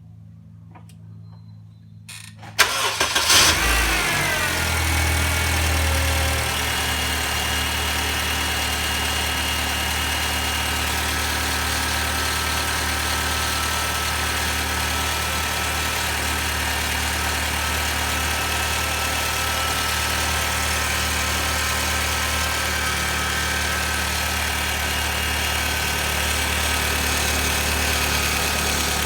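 2006 Honda Civic EX's 1.8-litre four-cylinder engine cranked and started about two seconds in, flaring up with a quickly falling whine and then settling to a steady idle. Thin high whining tones come and go over the idle; the owner reports an unexplained grinding noise that begins shortly after start-up.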